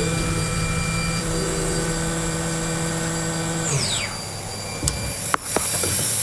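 CNC milling machine spindle running steadily, then shutting off with a falling whine about two-thirds of the way in. A few sharp clicks follow, and a loud steady hiss starts near the end.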